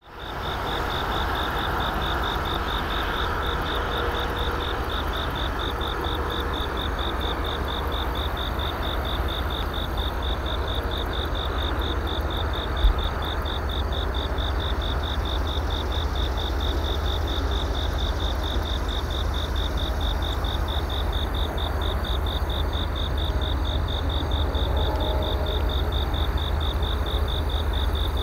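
Insects chirping in a steady, rapid, evenly pulsing high trill, over a steady low rumble. A single brief knock comes about halfway through.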